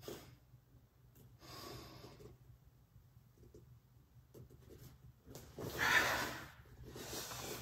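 A person breathing audibly through a slow breathing-and-movement exercise. There is a soft breath about a second and a half in, then a louder, longer breath about six seconds in, running straight into another.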